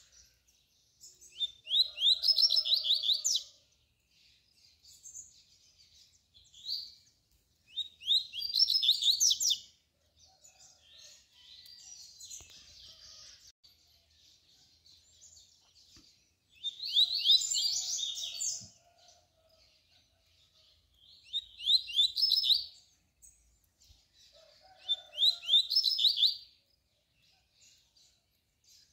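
Male double-collared seedeater (coleiro) singing the tui-tui song: fast runs of sharp, high notes in loud phrases of one to two seconds, repeated five times at intervals of a few seconds, with softer notes between.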